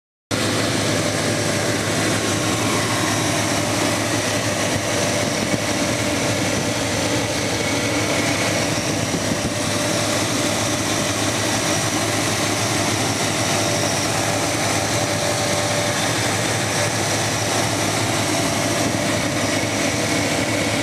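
1995 Chevy C1500's 5.7-litre 350 V8 idling steadily, its serpentine belt turning twin high-output alternators on a dual-alternator bracket. It starts abruptly just after the beginning, with a faint steady whine over the engine.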